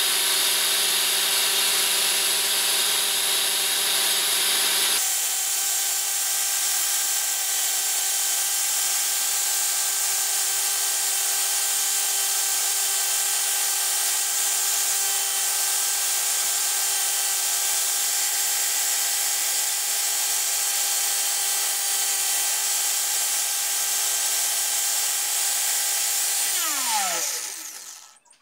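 Angle grinder with a sanding disc running steadily while a resin knife blank is sanded against it. Near the end it is switched off and its whine falls as the disc spins down to a stop.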